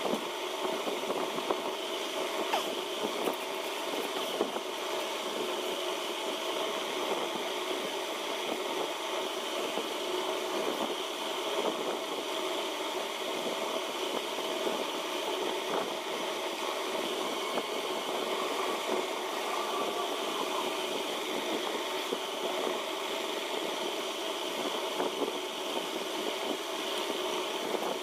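A steady mechanical hum that does not change, like a motor running.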